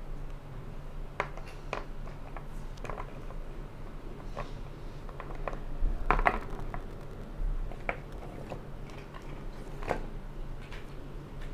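Irregular clicks and taps of hard plastic parts being handled: a Cateye bicycle light's plastic mounting bracket and clips turned over in the hands. A louder cluster of knocks and rustle about six seconds in comes as the cardboard box is handled.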